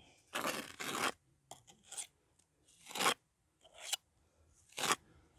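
Mason's trowel scraping and pressing mortar into a wall panel in short, irregular strokes: two close together about half a second in, then single ones around three and five seconds in.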